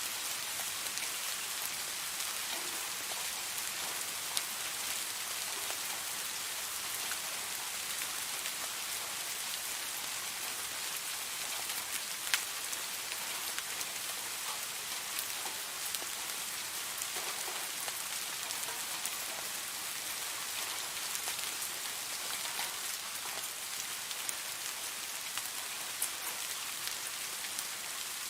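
Steady rain falling, an even hiss with scattered sharper drop clicks.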